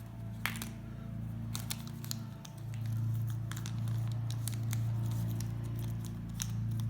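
Small Sugru pouch being torn open and handled: scattered sharp crinkles and clicks over a steady low hum.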